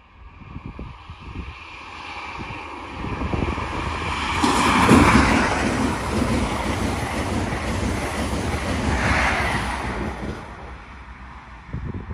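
CrossCountry High Speed Train (Class 43 power cars with Mark 3 coaches) passing close at speed. The rumble and air rush build over the first few seconds and peak about five seconds in as the train goes by, then die away from about ten seconds in. The air rush buffets the microphone.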